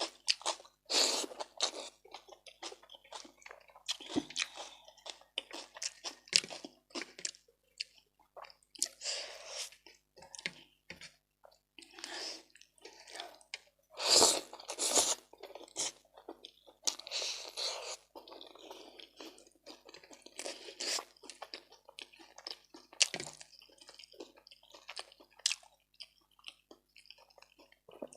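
A person chewing and crunching food close to the microphone, with irregular wet mouth smacks and crunches, a louder cluster about halfway through.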